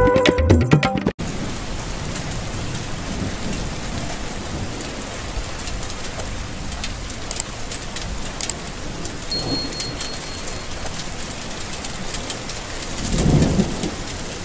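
Music stops abruptly about a second in, giving way to steady rain falling, with a low rumble of thunder swelling near the end.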